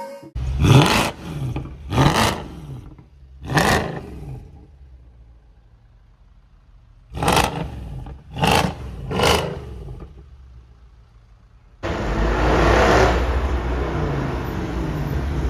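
Mercedes-AMG C63 (W204) 6.2-litre V8 revved while standing: three short sharp blips, a few seconds of idle, then three more blips, each rising and dropping quickly back to idle. Near the end the V8 runs steadily and loudly as the car drives.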